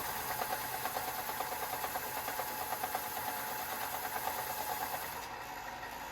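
Power sander running against the pitted iron body of a Dunlap hand plane, a steady whir with fast rasping pulses as it grinds the rust pitting down.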